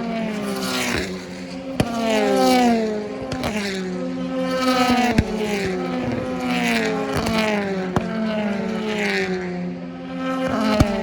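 Racing cars going past one after another at speed, each engine note falling in pitch as it passes, with sharp cracks every second or two.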